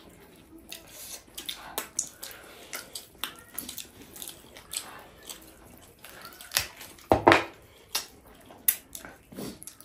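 Close-miked chewing of tough buffalo meat: irregular wet smacks and clicks of the mouth, with a few louder smacks about two-thirds of the way through.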